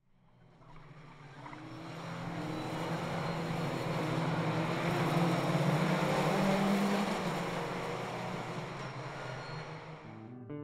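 Race car engines running at speed on a track, heard from a distance, swelling up over several seconds and then fading down again.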